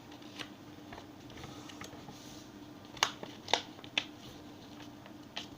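A sheet of paper being folded and creased by hand: a few sharp crackles and taps, the loudest about three and three and a half seconds in.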